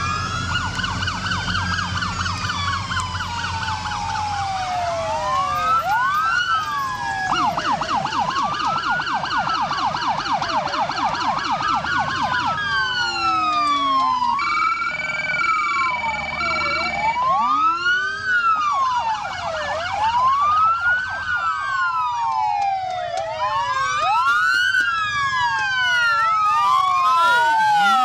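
Several emergency-vehicle sirens sounding at once from passing police cars and fire trucks: overlapping rising and falling wails, with a fast yelp from about 7 to 12 seconds in and a steady blaring tone around 14 to 17 seconds. A low engine rumble sits under the sirens in the first few seconds.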